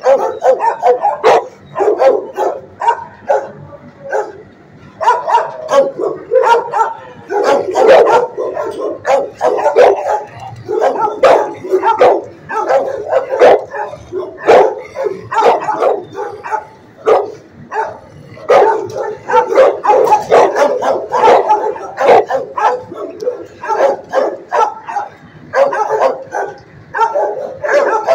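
Dogs barking over and over, in quick runs of barks with short gaps between them.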